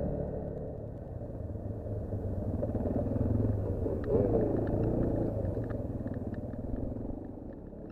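Off-road vehicle engine running under way. About four seconds in, the revs rise quickly and the sound gets louder, followed by scattered light clicks and rattles.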